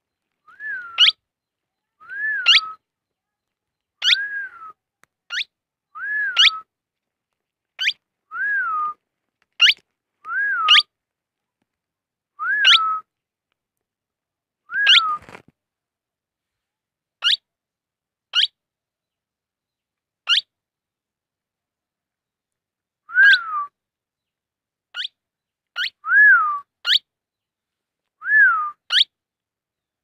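A young parakeet calling over and over: short whistled notes that dip in pitch, each with a quick rising squeak, about one every second or two. In the middle stretch only the brief squeaks come, then the fuller calls resume.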